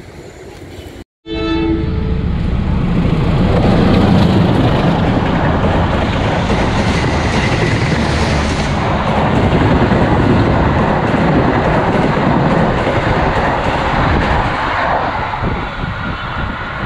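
A train horn sounds for about a second, then a long-distance passenger train passes close by at speed. Its rushing wheel and rail noise with clickety-clack over the joints stays loud for many seconds and eases slightly near the end.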